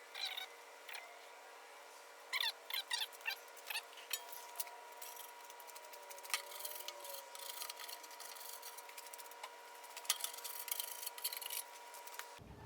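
Hand bodywork on a bus bumper: a tool scraping and rubbing over body filler in short strokes, with a cluster of squeaks about two to four seconds in.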